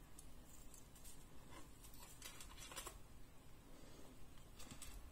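Very quiet, with a few faint clicks and light rattles of metal costume jewelry, a link bracelet and bead necklaces, being handled and set down.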